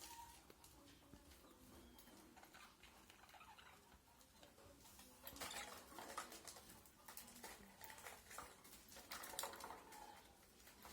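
Faint scratching and clicking of budgies moving about, with a few faint short chirps.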